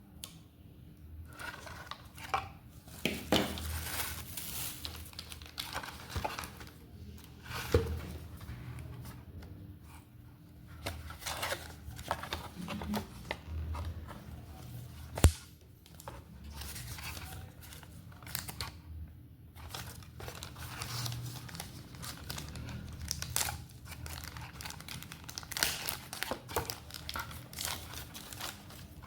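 Phone packaging being unboxed: plastic wrap and paper crinkling and tearing, with irregular handling rustles and one sharp click about halfway through.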